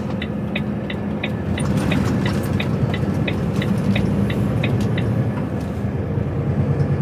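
Inside an HGV lorry cab: the diesel engine running and road noise on the move, with the indicator relay ticking about three times a second until about five seconds in.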